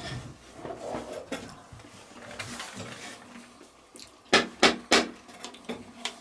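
Small wooden crate being handled: soft shuffling and light clinks, then three sharp clicks or knocks in quick succession a little after four seconds in, as the crate is lifted and held up.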